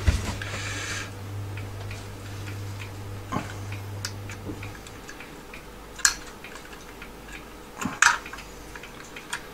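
Scattered clicks and light knocks of sheet-metal and plastic parts of a Commodore 1571 floppy drive mechanism being handled and pried apart by hand, the sharpest about six and eight seconds in. A low hum stops about halfway through.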